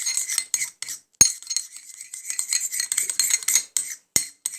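A spoon stirring a shampoo and salt mixture in a small bowl, scraping and clinking fast and steadily against the bowl, with two sharp knocks, one about a second in and one near the end.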